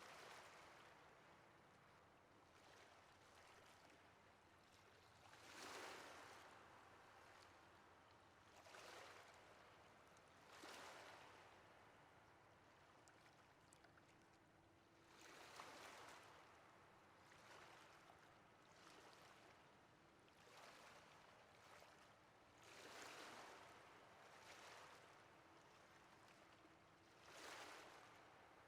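Faint ocean waves washing on a shore: a steady hiss of surf that swells into about six louder wave rushes, each rising and fading over a second or two.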